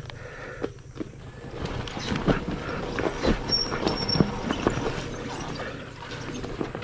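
Loose stones clattering and knocking under the tyres and riding boots as a Ducati Scrambler Desert Sled is edged slowly over a rocky trail, its air-cooled L-twin ticking over low underneath. The knocks come thickest from about two seconds in.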